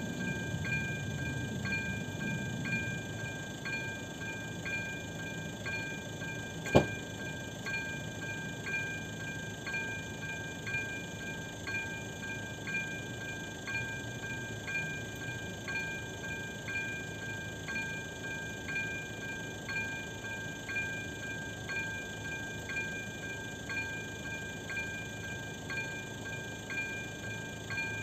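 Electronic warning bell of an AŽD 97 level-crossing signal ringing about once a second over a steady ringing tone, sounding while the crossing is closed for an approaching train. One sharp click about seven seconds in.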